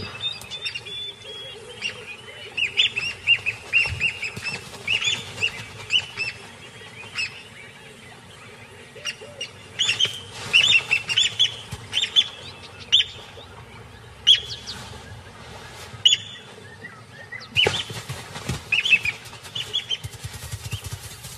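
Plover giving sharp, repeated alarm calls in clusters as it attacks a monitor lizard raiding its nest. A rush of noise comes in about eighteen seconds in.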